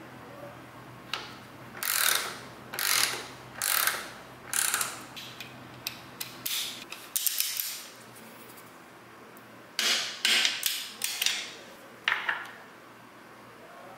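Hand ratchet wrench clicking through short strokes as it turns a motorcycle frame slider's mounting bolt. A run of about five strokes, a cluster more, a pause, then a few more strokes near the end.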